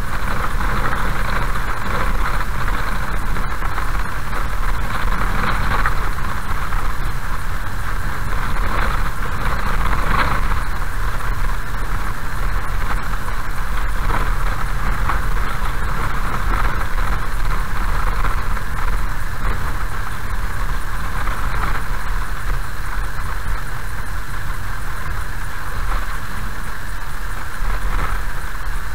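Car driving slowly on a gravel road, heard from inside the cabin: a steady low rumble of engine and road, with a constant hiss of tyres on the gravel.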